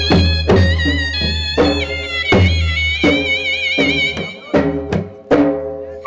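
Gujarati folk music for a raas dance: a reedy, wavering wind-instrument melody over a steady drum beat and a low drone. The melody drops out about four seconds in, leaving a few drum strokes before it comes back.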